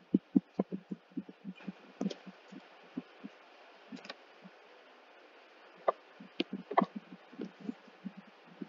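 Stylus tapping and knocking on a tablet screen while writing: soft, dull taps, several a second and irregular, with a few sharper clicks.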